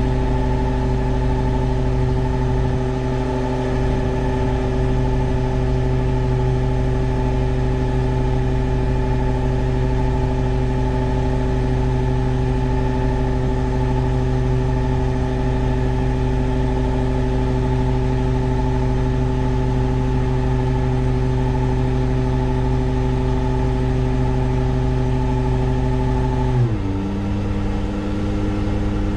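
New Way Mamba side-loader garbage truck's engine running at a steady raised idle. Near the end it drops to a lower idle.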